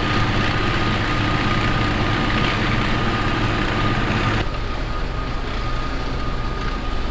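Tractor engine running steadily while driving a shredder, with a thin steady whine over a rushing noise. About four seconds in, the rushing noise drops away abruptly and the engine runs on.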